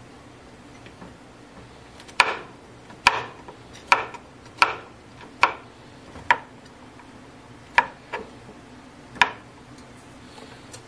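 Kitchen knife slicing mushrooms on a cutting board: about eight sharp knocks of the blade hitting the board, roughly one a second and unevenly spaced, starting about two seconds in.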